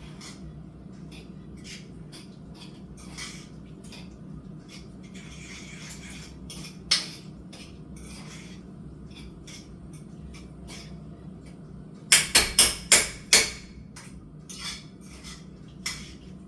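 Kitchen clatter: scattered clinks and knocks of utensils against cookware, with a quick run of five or six sharp clinks about twelve seconds in, over a steady low hum.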